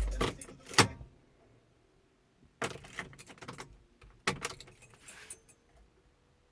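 Car keys jangling and clicking on the ignition as the key is turned off and back on, in two short bursts. A faint steady tone comes in near the end.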